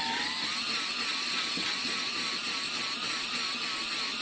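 DeWalt 20V cordless drill spinning a ball-type flex hone inside an oiled two-stroke snowmobile cylinder bore: a steady motor whine whose pitch wavers slightly, with a dense hiss of the abrasive balls scrubbing the cylinder wall. This is the honing pass that puts a crosshatch on the bore.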